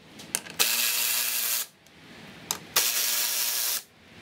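Cordless electric ratchet running in two bursts of about a second each, spinning out T30 Torx screws, with a few short clicks before each burst.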